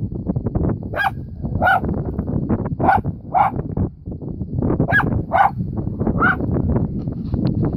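Dachshund barking at a gopher snake: about eight sharp barks in irregular bursts, with a pause around the middle.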